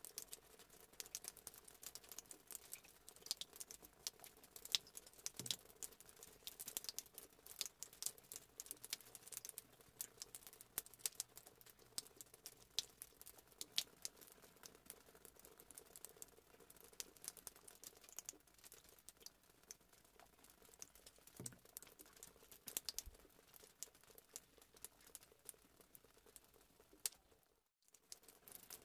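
Soft, irregular clicks and taps of a utensil against a mixing bowl as cake batter is stirred and the chocolate mixture poured in.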